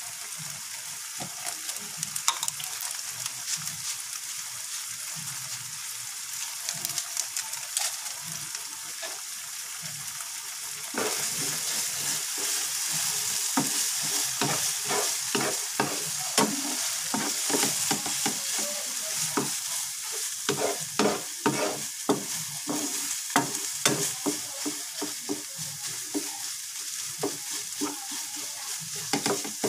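Eggs and a red minced mixture sizzling in oil in a nonstick frying pan. About eleven seconds in, the sizzling gets louder and a spatula starts stirring and scrambling, with repeated scrapes and taps against the pan.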